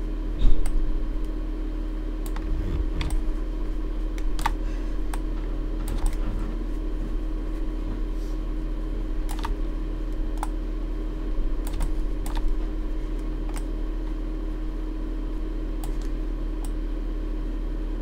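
Irregular clicks of a computer keyboard and mouse, about one a second, over a steady low electrical hum.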